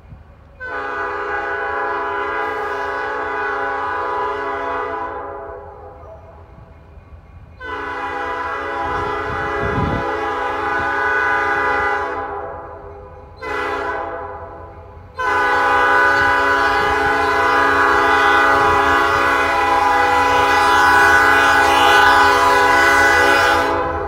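Diesel locomotive horn blowing the grade-crossing signal: two long blasts, a short one, then a final long blast. It is a chord of several steady tones, each blast louder than the one before as the locomotive draws near the crossing.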